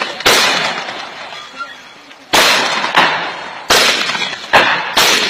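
Mortars firing from a line of pits: about six loud, sharp reports at uneven intervals, each trailing off in a rolling echo.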